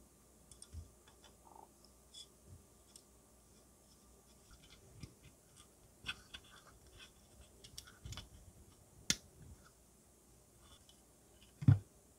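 Small plastic and metal model-kit parts clicking and tapping as they are pressed together by hand onto a plastic chassis, with a sharp click about nine seconds in and a louder knock near the end.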